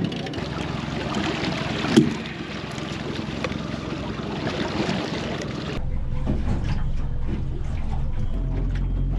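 Wind and water rushing along the side of a small fishing boat, with a single sharp knock about two seconds in. About six seconds in the sound cuts to a low, steady hum.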